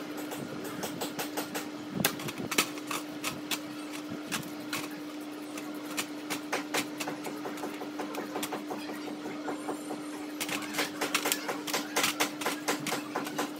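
Brush scrubbing greasy angle-grinder parts in a tray of cleaning liquid: quick, irregular scratchy strokes of bristles on metal, several a second, coming faster about ten seconds in.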